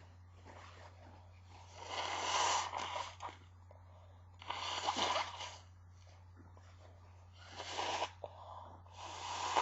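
A woman's stifled sneezes, four in a row a couple of seconds apart, each a short breathy burst. They are only partly held back because the sneezes have grown more powerful. A steady low hum runs underneath.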